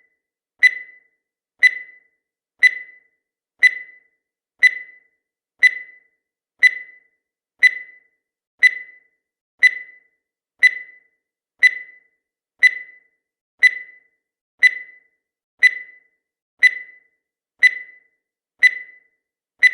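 Countdown timer sound effect: a short, high electronic beep once every second, evenly spaced and unchanging, each one fading quickly.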